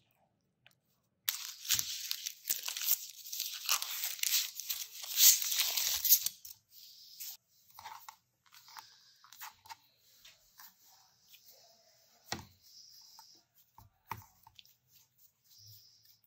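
Loud crackling and tearing of a wrapping being pulled off, lasting about five seconds, followed by faint soft taps and rustles as hands press pastry dough flat on a wooden board.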